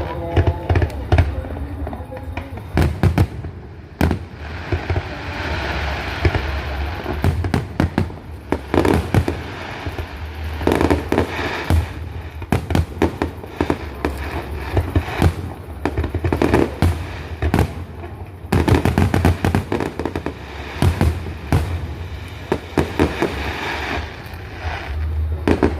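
Aerial fireworks display: repeated bangs of shells bursting, mixed with crackling, going on without a break.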